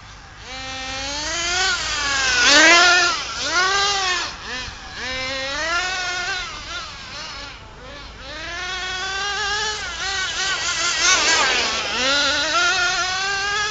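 The small two-stroke nitro engine of a radio-controlled HPI Rush Evo truggy, revving up and down again and again as it is driven about, its pitch rising and falling in short sweeps. It is loudest about two and a half seconds in and again near eleven seconds.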